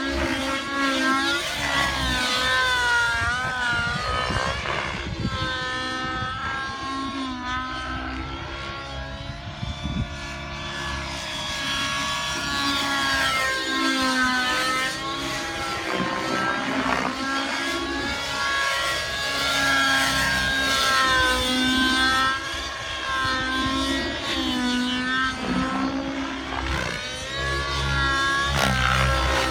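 Synergy N7 radio-controlled helicopter flying aerobatics: the whine of its motor and rotor rises and falls in pitch over and over, with rumble from wind on the microphone.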